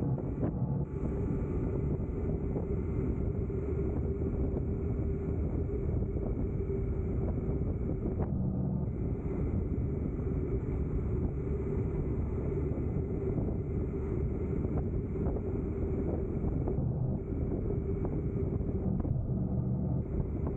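Steady drone of a vehicle engine with rumbling wind noise on the microphone, holding an even level throughout.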